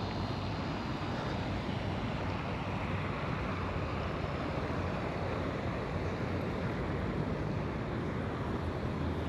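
Steady wind rushing over the microphone outdoors, with a low hum underneath.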